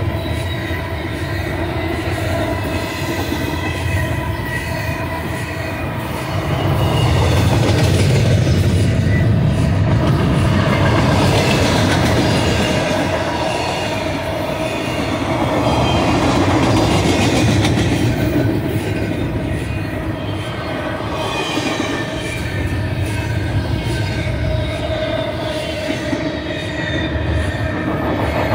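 Double-stack container train's loaded well cars rolling past close by: a continuous rumble of steel wheels on rail, swelling louder a couple of times, with steady high wheel squeal ringing over it.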